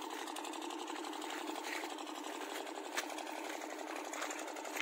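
A small motor running steadily with a fast, even buzzing rattle, and a single sharp click about three seconds in.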